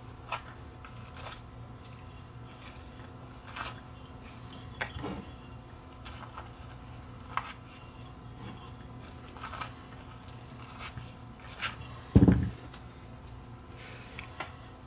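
Small clicks and taps as a speaker driver's stamped-metal frame is handled and a new foam surround is fitted around the cone. There is one louder knock about twelve seconds in.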